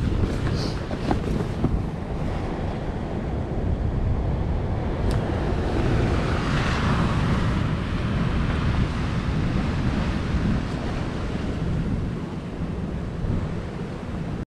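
Wind buffeting the microphone over sea waves washing against the rocks, with one wave surging up louder about six to seven seconds in.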